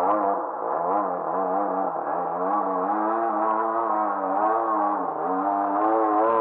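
Engine of a radio-controlled Sbach aerobatic model plane in flight, running continuously with its pitch wavering up and down as it manoeuvres.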